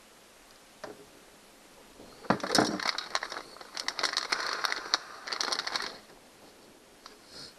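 Power drill boring out a rivet hole in a plastic kayak hull, running in three short bursts with a crackly, grinding bite into the plastic.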